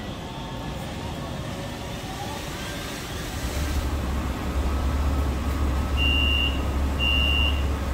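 Light-rail tram standing at a platform with its doors open: its steady low hum, then door-closing warning beeps starting about six seconds in, a high beep about half a second long once a second. Before the cut, the tram approaching on wet track.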